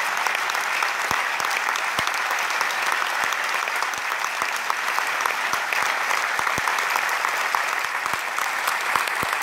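A large audience applauding, with steady, dense clapping and individual claps standing out.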